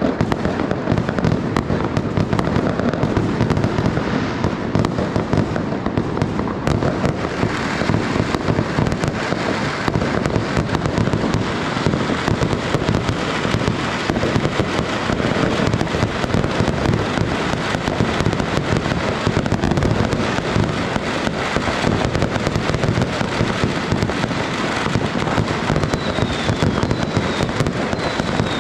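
Fireworks and firecrackers going off in a dense, unbroken barrage of crackling bangs. Near the end a few short falling whistles sound over the crackle.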